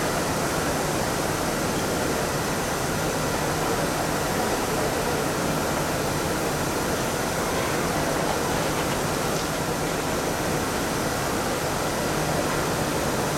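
Steady railway-station ambience: an unbroken rushing hiss with a low, constant hum and no distinct events.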